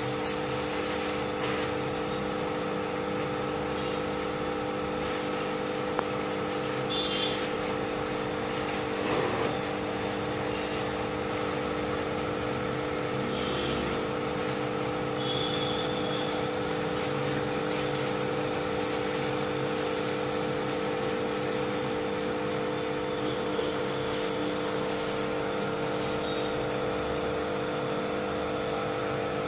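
Steady hum of aquarium pumps: several constant tones over a low, even whir, with a few faint short clicks now and then.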